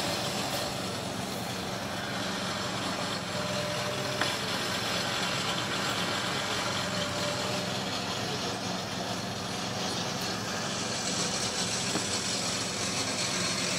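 Steady, even mechanical hum of an engine or motor running at a constant speed, under a broad hiss.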